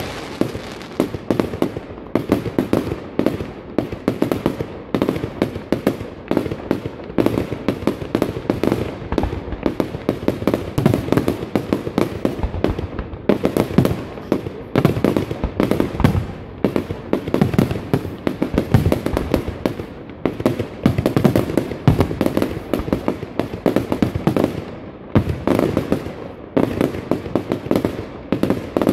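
Large fireworks display firing a dense barrage of aerial shells and batteries: sharp bangs follow one another many times a second with hardly a pause, over crackling.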